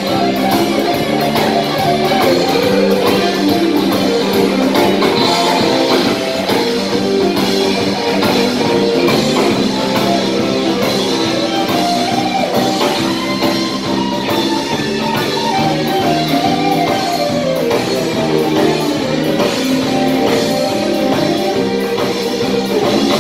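A live band playing an amplified rock tune on electric guitars, electric bass and drum kit.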